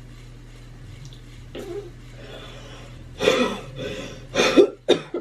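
A person coughing: a quiet start, then three or four harsh coughs from about three seconds in, the last two short and sharp.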